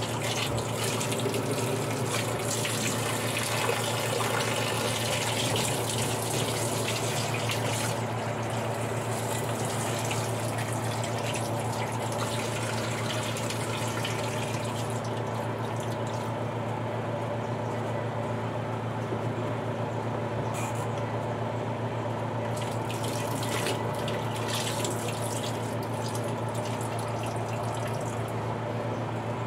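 Water from a hose pouring into the wash tub of a twin-tub washing machine: a steady rushing fill that thins out after about eight seconds. A steady low hum runs underneath.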